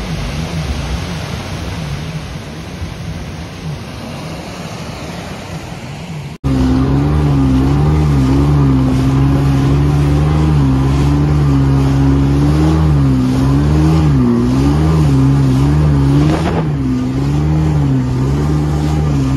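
Yamaha jet ski engine running, its pitch rising and falling with the throttle, with splashing spray and surf. For the first six seconds it is fainter, mixed with the surf. After an abrupt cut it is loud and close, heard from on board.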